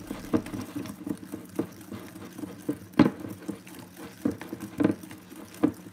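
Wire whisk beating a thick pudding mixture by hand in a glass bowl: a wet stirring sound with irregular sharp clicks of the whisk wires against the glass, the loudest about three seconds in.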